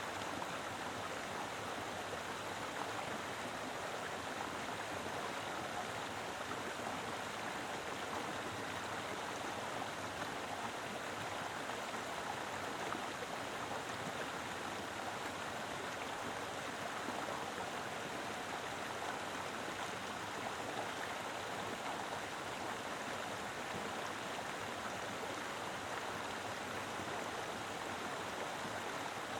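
A mountain river flowing steadily, its water rushing and splashing over rocks in an even, unbroken wash of sound.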